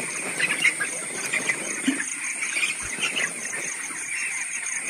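A flock of young broiler chickens peeping continuously, many overlapping short chirps, over a steady high-pitched whine.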